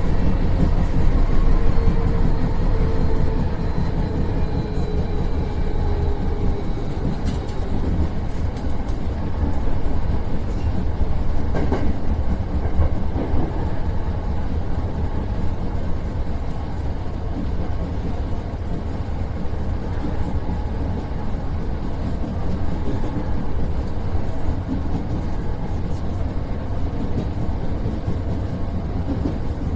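Hankyu electric train heard from inside, just behind the driver's cab, pulling away from a station: an electric motor whine shifts in pitch over the first several seconds and then fades. Under it runs a steady rumble of wheels on rails, with a couple of sharp clacks.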